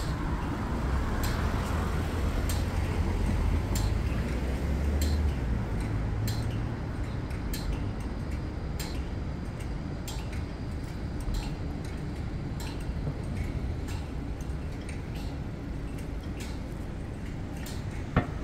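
Pedestrian crossing signal ticking slowly, a little over once a second, over a steady low rumble of passing traffic, with one sharp knock near the end.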